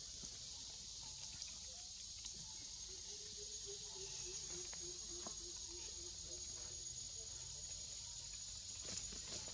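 Steady high-pitched insect chorus, with a thin continuous trill running over it. From about three seconds in, a low call of fast, even pulses repeats for about four seconds, with a few faint clicks.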